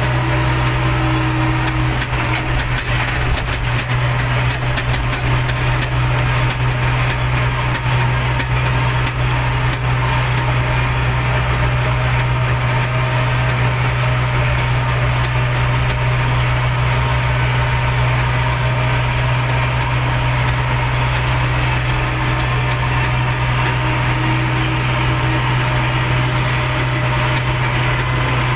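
JCB backhoe loader's diesel engine running steadily under way, heard from inside the cab as a constant low drone, with scattered light rattles.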